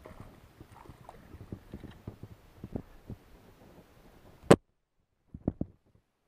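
Handling noise as an angler brings a small hooked fish aboard a bass boat and grips it: scattered small knocks and rustles, one sharp loud knock about four and a half seconds in, then a few softer knocks.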